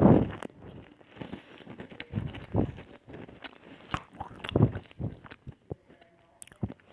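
Crunchy biscuits being bitten and chewed close to the microphone: irregular crackly crunches, loudest at the start and again about two and a half and four and a half seconds in, fading to small ticks near the end.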